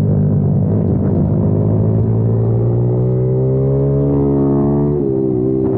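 Kayo TT 140 pit bike's single-cylinder four-stroke engine accelerating: the engine note climbs steadily from about a second and a half in, then drops sharply about five seconds in.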